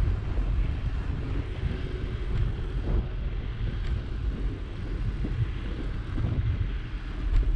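Wind buffeting the microphone of a bike-mounted action camera while riding, a steady low rumble, with bicycle tyres rolling on a packed-snow road and a couple of faint clicks.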